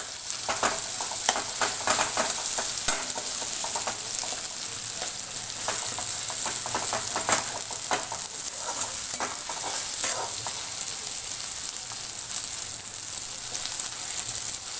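Masala of tomato and ground spice pastes sizzling in oil in a kadai, with a metal spatula stirring it and scraping and clicking against the pan again and again.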